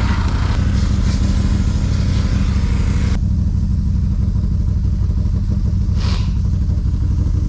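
Small petrol engine of a pressure washer running steadily at a constant speed. A hiss rides over it and stops about three seconds in, and there is a brief hiss again around six seconds.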